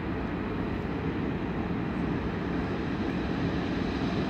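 Approaching train: a steady low rumbling drone that slowly grows louder.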